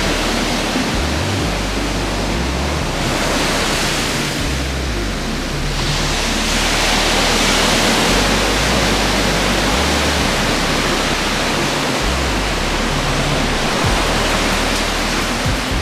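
Ocean surf: a loud, steady rush of breaking waves that swells around the middle.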